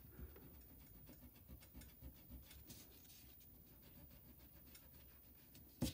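Faint, irregular rubbing and scratching of an eraser rubbing pencil lines off construction paper.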